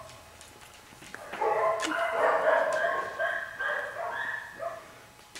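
Dogs barking repeatedly, a run of short barks starting about a second and a half in and going on for several seconds.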